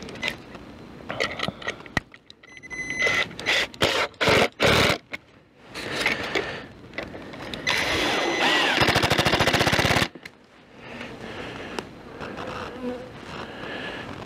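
Polystyrene foam insulating panels being handled and fitted against wooden beehive boxes: scattered knocks and scrapes, a short squeak about three seconds in, then a loud, fast, even rattling scrape from about eight to ten seconds in.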